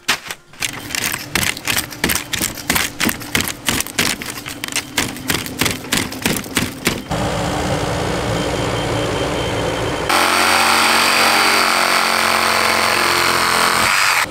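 Construction work noise: about seven seconds of rhythmic knocking, roughly three knocks a second, then steady machine noise that gets louder about ten seconds in and stops abruptly.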